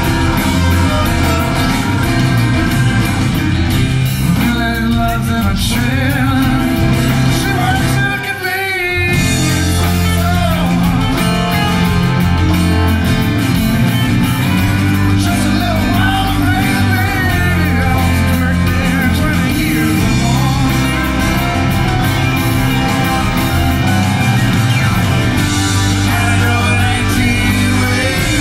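Live band playing an up-tempo rock/Americana song, with acoustic guitars, electric bass, drums, keyboard and fiddle. The bass and drums drop out briefly about eight seconds in, then come back in.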